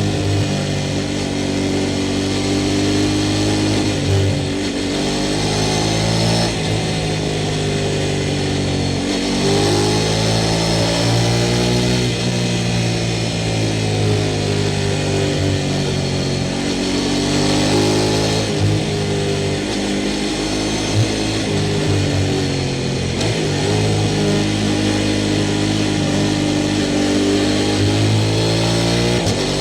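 Sport motorcycle engine riding hard, its pitch climbing as it accelerates and dropping back every few seconds through gear changes and lifts of the throttle, with a steady rush of noise over it.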